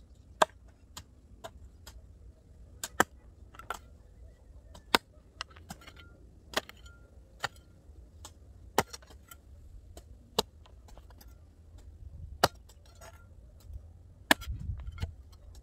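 Repeated sharp strikes of a long-handled digging tool chopping into soil and stones, about one a second, some loud and some fainter, a few leaving a brief metallic ring. A low rumble comes in near the end.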